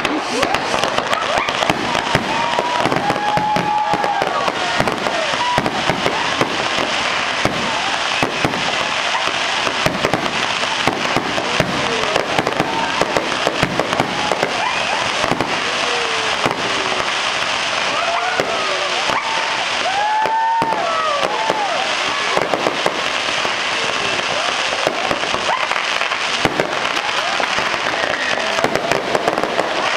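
Fireworks display: dense, continuous crackling and popping from fountains and aerial bursts.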